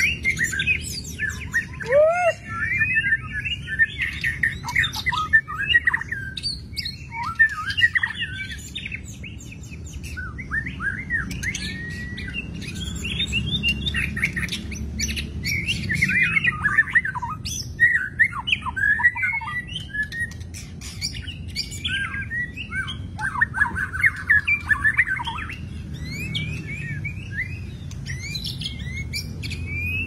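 Caged songbirds, a long-tailed white-rumped shama among them, singing a continuous run of varied quick whistles, trills and chirps, with a steady low rumble underneath.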